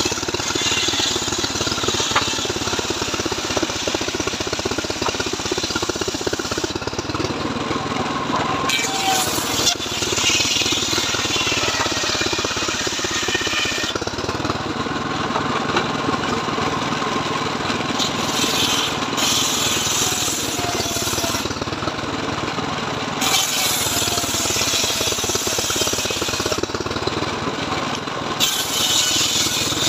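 Homemade engine-driven table circular sawmill (gergaji srekel) running steadily while ripping mahogany boards. The high cutting noise swells and drops back several times as the wood is pushed through the blade.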